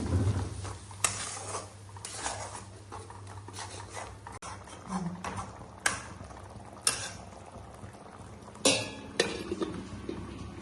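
A metal spoon stirring in a cooking pot, with sharp clinks of metal on metal about a second in, around six and seven seconds, and twice close together near the end.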